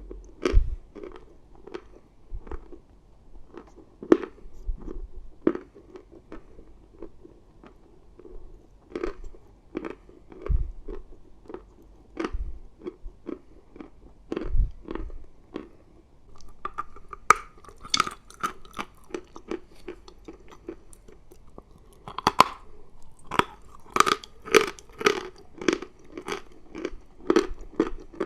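Close-miked chewing of chalk: irregular sharp crunches and grinding bites, growing busier and louder in the last few seconds.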